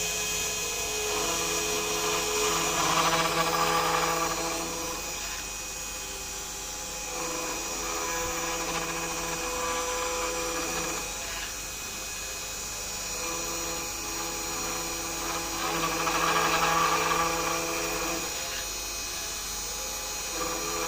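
Small Arduino-driven CNC router carving wood: the spindle motor runs steadily while pitched whines from the axis motors start and stop every few seconds. The cutting noise swells louder twice, about three seconds in and again near the end.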